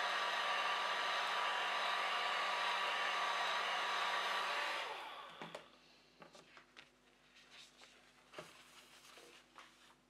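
Small handheld travel hair dryer blowing steadily with a faint low hum, switched off about halfway through and running down within half a second. Afterwards only a few faint light taps.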